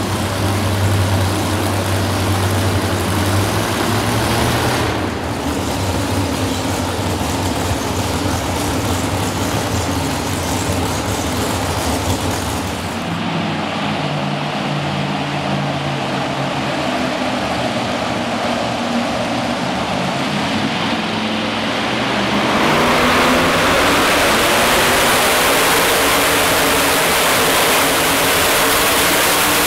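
Modified pulling tractor engines running at idle near the sled. About halfway through the sound switches to a supercharged engine idling, which grows louder and fuller in the last seven seconds as it is revved, hooked to the sled.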